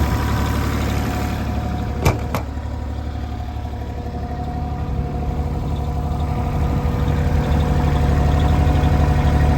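IHI 35NX mini excavator's diesel engine idling steadily, growing louder in the second half. Two sharp clicks about two seconds in.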